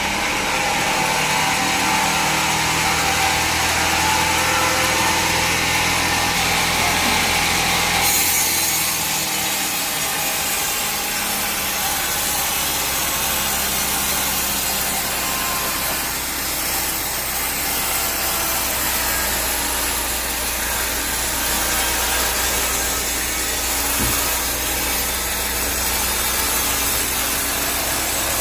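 Sawmill saw cutting through timber: a steady, loud sawing noise over machinery running underneath. The sound changes character abruptly about eight seconds in.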